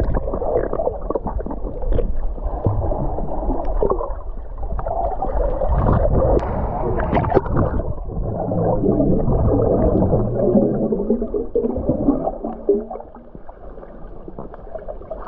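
Muffled underwater sound picked up by a submerged action camera: water rushing and bubbles gurgling around it as a swimmer moves close by, with everything above a low, dull range cut off. It grows quieter for the last few seconds.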